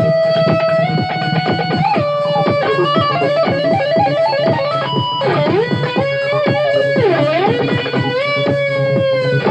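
Electric guitar playing a lead melody of held notes with string bends, over a backing track with a steady low bass. About five and seven seconds in the pitch swoops down and back up, and the last long note wavers with vibrato.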